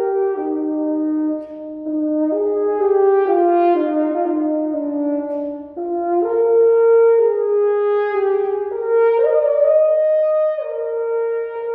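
Solo French horn playing an unaccompanied melodic line of held notes that step up and down in pitch, with two brief pauses in the phrase.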